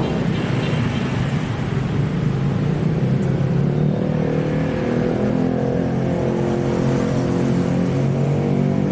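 A motor vehicle's engine running steadily, a low hum whose pitch shifts slightly about halfway through.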